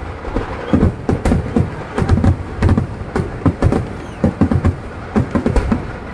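Fireworks display going off in a rapid, irregular barrage: deep booms and sharp cracks, several a second.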